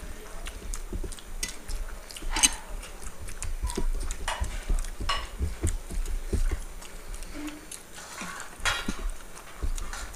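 Two people eating rice with their fingers from steel plates: irregular clicks and taps of fingers and food on the metal, a few ringing briefly, with mouth sounds of eating.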